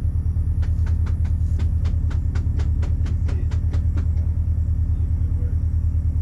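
Car engine idling with a low, pulsing rumble. Over it, a quick run of light taps, about four a second, begins under a second in and stops about four seconds in.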